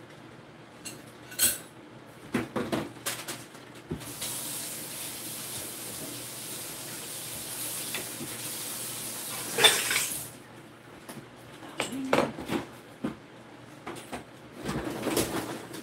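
Dishes and utensils clattering at a kitchen sink, with a tap running for about six seconds in the middle and a louder clatter as it shuts off.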